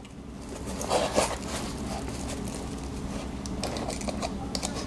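Small clicks and scrapes of a metal zipper slider and its broken pull ring being pried at with a pocket knife, a little louder about a second in, over a steady low hum.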